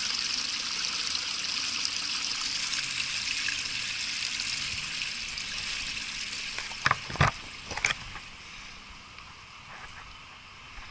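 Small brook babbling and trickling over rocks, fading away about two-thirds of the way through. A few sharp knocks about seven seconds in are the loudest moments.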